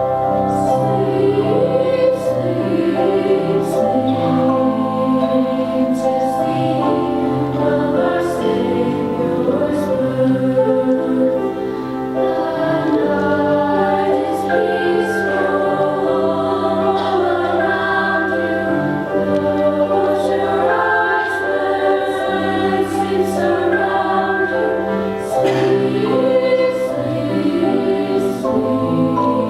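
High school women's chorus singing in harmony.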